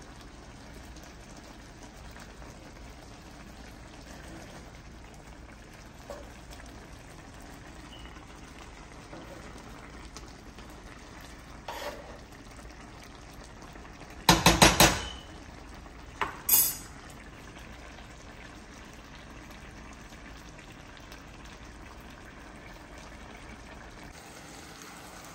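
Jambalaya simmering in a cast-iron skillet with a steady bubbling hiss while a metal spoon stirs it. About halfway through the spoon knocks sharply against the pan four times in quick succession, then twice more.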